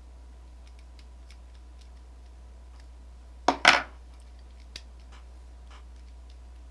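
Handling of the DualShock 3 controller's plastic parts: light scattered clicks, then two sharp, loud snaps in quick succession about three and a half seconds in, and one more small click a second later.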